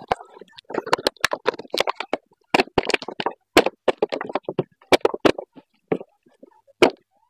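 Clear plastic jar with a screw-on lid being handled: a quick, irregular string of sharp clicks, taps and crackles as the lid is unscrewed and the thin plastic flexes under his hands.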